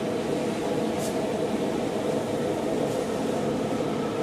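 Lit blacksmith's forge running with a steady rushing noise, without any hammer strikes or clanks; a faint click about a second in.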